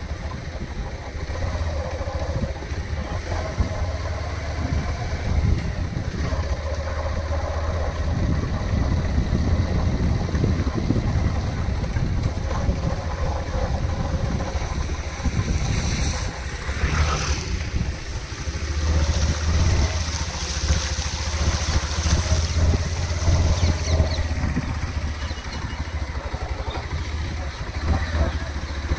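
Motorcycle engine running steadily while the bike rides through floodwater on a submerged road, with water sloshing and splashing around it.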